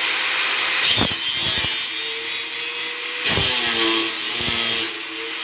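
Bosch angle grinder with a thin cut-off disc cutting through a steel sheet: a steady motor whine under the hiss of the disc in the metal. The pitch shifts as the load changes, about a second in and again after three seconds.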